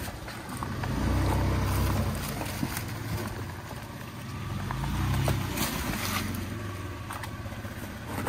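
Third-generation Toyota 4Runner's engine pulling under load as it crawls over rocks, swelling about a second in and again around five seconds in, with tyres crunching and clicking over rock and dry leaves.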